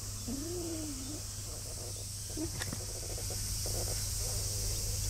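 Steady high drone of summer cicadas, with a short low gliding call less than a second in and a faint click a little after the middle.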